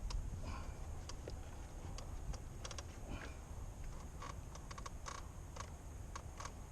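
Irregular small clicks and creaks from hands working a large fish hook, paracord and a dead duck bait, over a low steady rumble.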